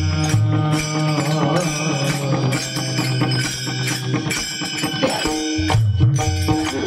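Devotional Marathi kirtan music: a male singer's voice over sustained instrumental tones, with a steady beat of percussion strikes.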